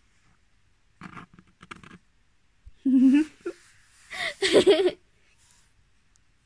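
A woman's wordless laughter and giggling in three short bursts, about one, three and four and a half seconds in, the last the loudest.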